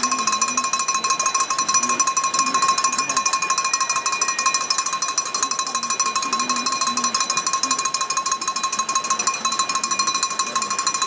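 A metal bell struck rapidly and without pause: a steady, fast ringing clatter with a faint low voice underneath.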